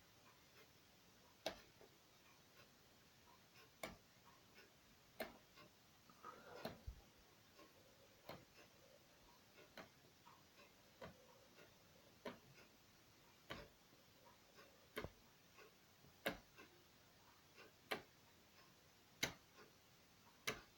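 Program selector dial of a Beko washing machine turned one step at a time, a short click at each position, about every second and a half, against near silence.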